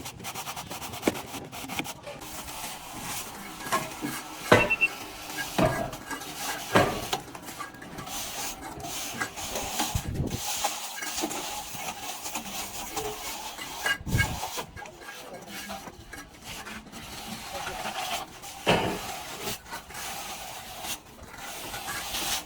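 Steel trowel scraping and spreading plaster across a wall: irregular rubbing strokes with occasional knocks of the tool.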